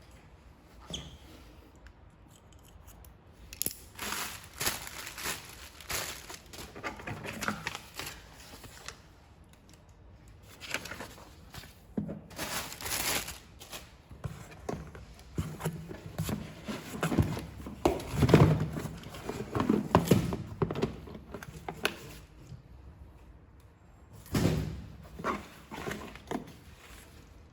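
Handling sounds from unpacking a cordless drill and its plastic carry case: irregular knocks, clicks and rustling of packaging in several bouts, loudest about two thirds of the way through.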